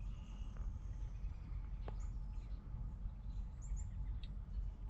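A few short, high bird chirps, faint over a low, steady outdoor rumble.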